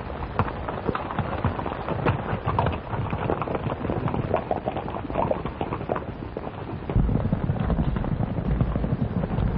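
Hoofbeats of several horses clattering as a group of riders moves off at speed, heard as many quick, uneven clicks over the hiss of an early sound-film track. About seven seconds in, a louder, deeper steady noise comes in under the hooves.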